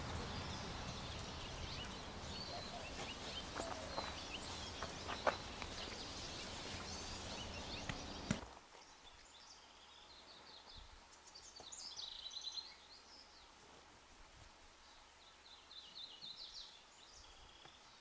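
Small songbirds chirping and twittering in short high phrases over outdoor background noise, with a couple of sharp clicks in the first half. About eight seconds in, the background noise drops sharply, leaving bursts of high twittering song.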